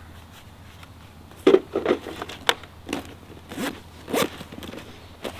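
Zipper on a padded fabric Drifta chainsaw bag being pulled closed in a series of short strokes, about two a second, the first and loudest about a second and a half in.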